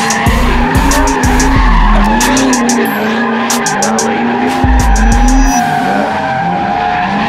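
Cars spinning donuts with their tires squealing steadily. Their engines rev up and down over and over, each rise and fall lasting about a second, with bursts of low rumble twice.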